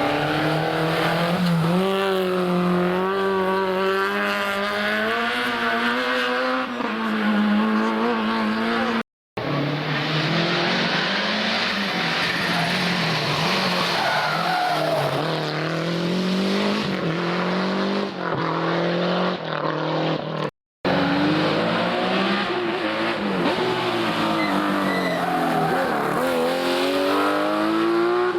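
Historic rally car engines revving hard at speed, the pitch climbing and dropping again and again through gear changes. The sound cuts out to silence twice, about 9 and 21 seconds in, splitting it into three separate car passes.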